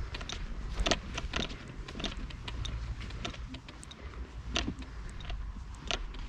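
Low, steady rumble of wind on an outdoor microphone, with scattered soft clicks and knocks at irregular intervals, the sharpest about a second in.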